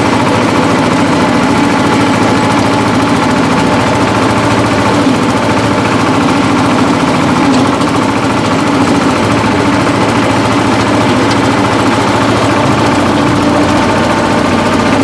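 Shifeng-240 belt-driven mini tractor engine running steadily under load while its rear rotary tiller churns through the soil.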